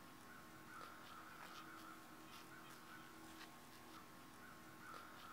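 Near silence: faint outdoor background with a thin steady hum and a few faint scattered ticks.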